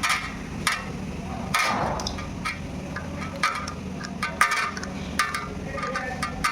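Irregular short clinks and taps, some with a brief metallic ring, over a steady low hum.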